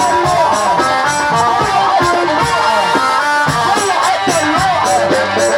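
Loud Egyptian mahraganat-style dance music, with a wavering, ornamented lead melody over a steady drum beat.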